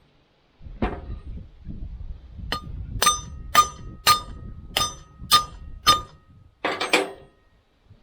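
Seven sharp, ringing hammer blows on metal, about two a second, after a knock and some low handling noise. A short rattling clank of metal comes near the end.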